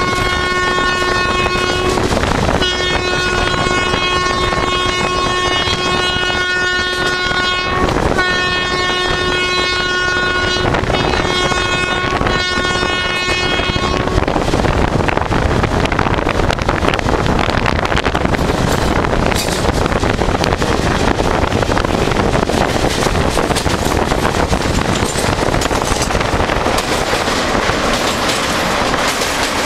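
WAP4 electric locomotive's horn sounding one steady note in long, repeated blasts with short breaks for roughly the first fourteen seconds, heard from the train it is hauling. After that only the train's running noise at speed, wheels on the rails and rushing air, continues.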